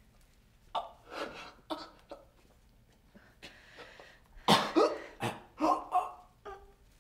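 A man gasping and choking in short, uneven bursts as a hand grips his throat, loudest about four and a half seconds in.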